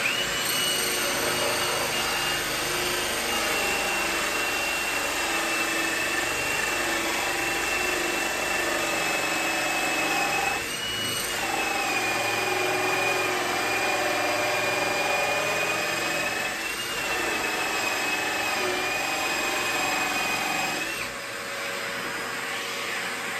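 Cordless drill driving a 1 3/4-inch hole saw through a wooden desktop, its motor whining steadily under load and easing off briefly twice, with a vacuum running alongside to pick up the sawdust. The drill stops near the end while the vacuum keeps running.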